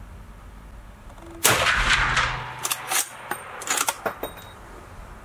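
A single shot from a Pedersoli 1886 lever-action rifle in .45-70 Government, echoing for about a second off the range's walls. About a second later comes a quick series of sharp metallic clacks as the lever is worked to eject the case and chamber the next round.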